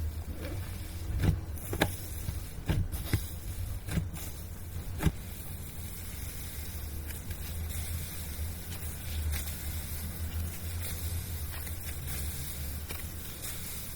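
Slime being handled by hand: several sharp pops and clicks in the first five seconds, then softer handling sounds, over a steady low hum.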